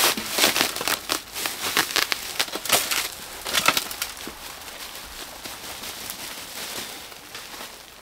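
A plastic grow sack rustling and crinkling as it is held upside down and shaken, with soil pouring out of it into a wheelbarrow. The rustling is densest in the first half and then eases to a softer, thinner sound.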